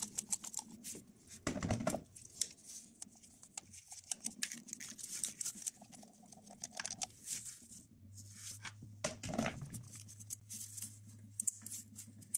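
Faint, irregular clicking and rattling of a socket wrench with a 10 mm socket on an extension, undoing the screws that hold the thermostat housing to the engine.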